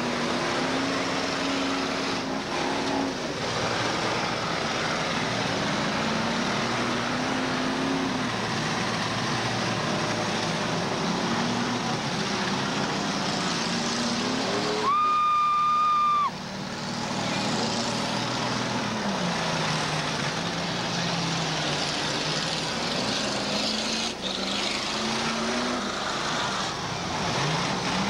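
Demolition derby car engines running and revving up and down over a steady din. About halfway through, a horn sounds once, a loud steady blast of about a second and a half.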